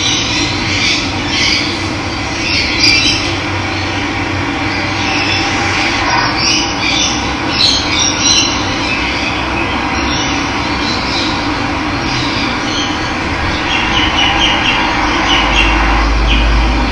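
Steady rush of running water, with birds chirping over it.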